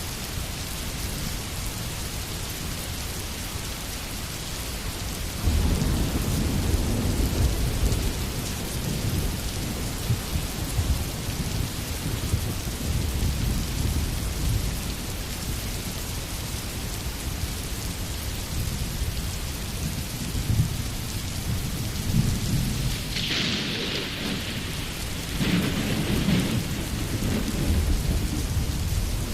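Steady rainfall with low rolls of thunder, one swelling about five seconds in and another near the end.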